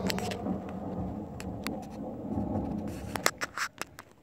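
Recorded thunder rumbling from the storm cloud lamp's speaker, fading out about three seconds in, followed by a few sharp clicks near the end.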